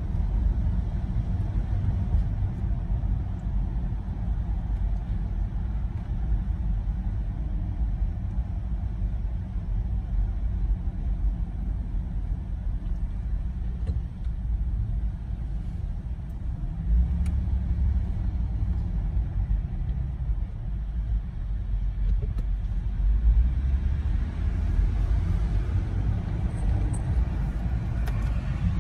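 Steady low rumble of engine and road noise inside a moving Jeep's cabin, swelling slightly a couple of times in the second half.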